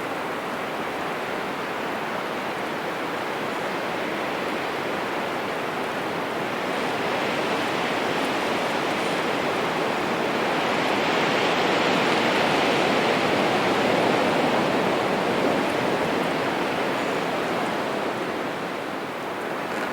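Heavy wind gusting through forest trees, a rushing of wind in the branches and leaves that swells over several seconds, peaks around the middle, then slowly eases.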